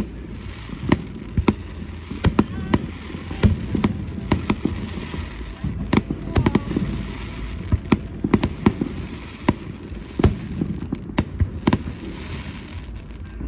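Fireworks display: aerial shells bursting in a steady, irregular run of sharp bangs, about one or two a second, each with a short echoing tail.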